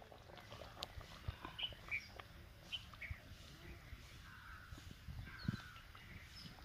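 Faint outdoor ambience with a few short, high bird chirps in the first half and some small clicks and knocks.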